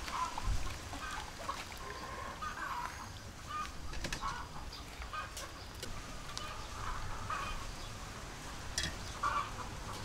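Chickens clucking, a string of short calls every second or so, with a few sharp clicks in between.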